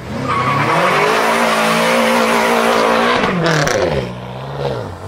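BMW M5 F10's twin-turbo V8 revs up and is held at high revs while the rear tyres spin and squeal in a burnout. The revs drop about three seconds in, settle lower, then fall again near the end.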